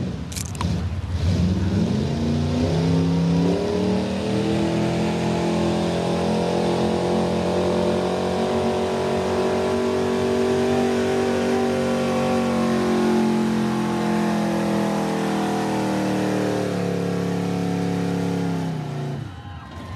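Competition pulling vehicle's engine at full throttle through a pull: the revs climb over the first few seconds, hold high and steady down the track, then fall away and stop a second or so before the end.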